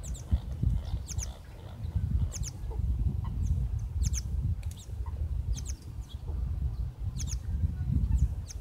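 Small birds chirping: short, high, quick calls, often in pairs, every half second to a second. Under them runs a loud, uneven low rumble of wind on the microphone.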